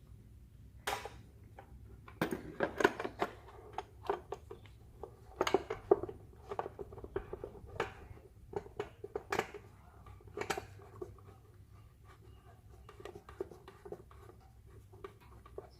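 Irregular clicks, taps and scrapes of small parts being handled and fitted by hand during battery reassembly on a motorcycle, busiest in the first two-thirds.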